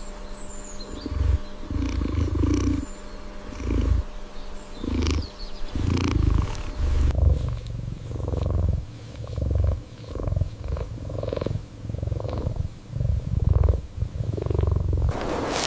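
A cat purring, a deep rumble that swells and fades with each breath, about once a second.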